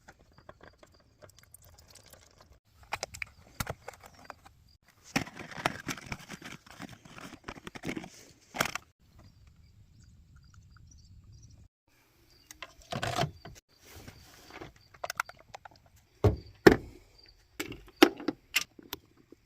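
Irregular clinks, knocks and clatter of hand work on a truck during an oil change, with short quiet gaps between the handling noises.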